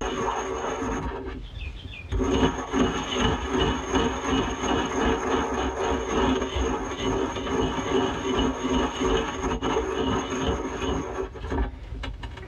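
Ceramic pestle grinding dry Prussian blue pigment in a glazed ceramic mortar: a continuous gritty scraping and rubbing, with a short break about a second and a half in.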